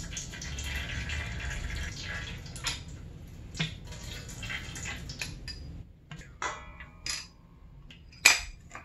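Old fork oil running and dripping from a dirt-bike fork's damper assembly into a stainless steel bowl, with only a little oil left in the fork. Scattered metallic clinks and taps of the fork parts against the bowl follow, with one sharp clack near the end the loudest.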